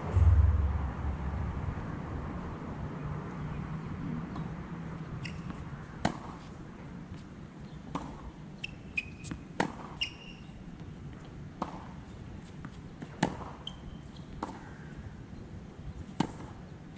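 Tennis rally on a hard court: sharp pops of racket strings striking the ball and of the ball bouncing, the loudest roughly every three and a half seconds. A brief low rumble in the first two seconds.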